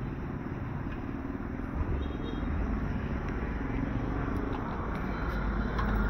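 Street ambience: the steady rumble of road traffic, growing louder near the end.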